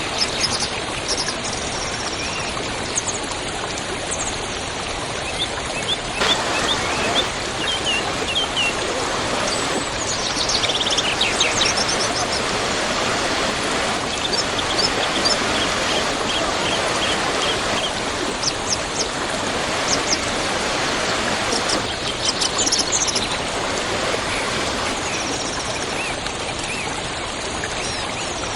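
Waterfall: water falling steadily, with small birds chirping over it several times.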